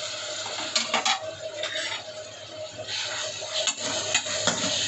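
Onion paste and green chillies sizzling in hot oil in a metal kadhai while a metal ladle stirs them, scraping and clicking against the pan a few times.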